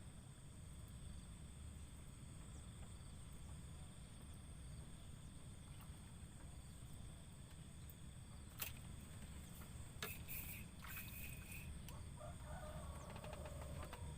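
Faint outdoor ambience: a steady high insect drone over a low rumble. There is a sharp click a little past halfway, then a few more clicks and short chirps soon after.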